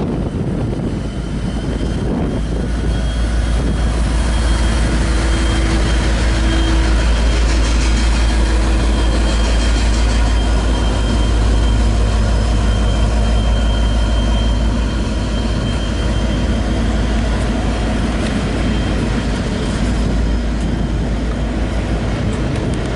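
V/Line N class diesel-electric locomotive departing under power past the platform, its engine running loud and deep, then its passenger carriages rolling by on the rails near the end.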